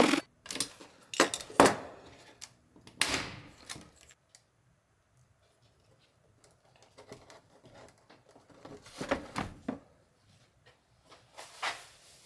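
Scattered clicks and knocks of hard plastic parts being handled and set down on a wooden workbench: a Starlink dish's face plate and a flat-mount frame. A few knocks come in the first few seconds, then a quiet spell, then another cluster of knocks after the middle.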